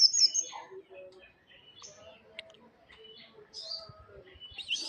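Small tame songbird chirping: a loud burst of high, quick chirps at the start, then scattered short tweets, with another burst of chirps near the end.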